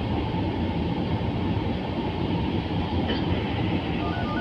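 Manila MRT-3 metro train running on its elevated track, a steady rumble heard from inside the car as it pulls into a station. A few short, faint high tones come near the end.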